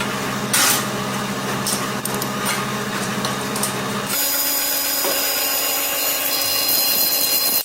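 CNC machine running with a steady hum of several layered tones. About four seconds in, its sound changes and a higher whine comes in. It cuts off abruptly at the end.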